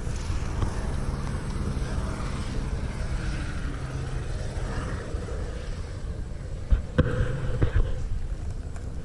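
Wind buffeting the camera microphone high on an exposed snow ridge: a steady low rumble. A few sharp knocks come about seven seconds in.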